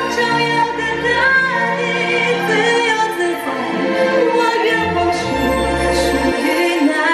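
Orchestral show music with choir and solo singing.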